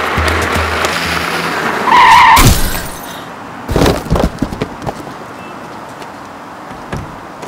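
Background music cuts off, and about two seconds in a short, loud tyre-skid screech sound effect follows, with a few quieter knocks shortly after.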